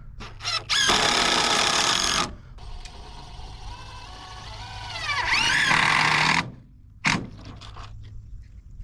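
A handheld power tool running in two short bursts of about a second and a half each, its motor whining up in pitch as each burst starts. A sharp click comes about seven seconds in, over a steady low hum.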